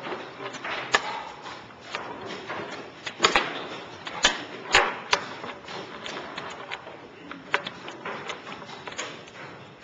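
Wooden chess pieces knocked down onto the board in a fast blitz game: a string of sharp knocks, several close together around the middle.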